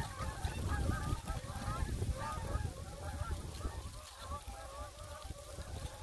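A flock of geese honking, many calls overlapping, thinning out toward the end, over a low rumble on the microphone.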